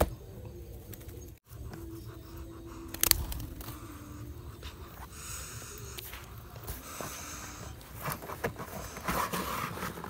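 Scattered rustling and light knocks of hands working on dirt ground, setting sticks and seed for a box trap, with one sharp click about three seconds in.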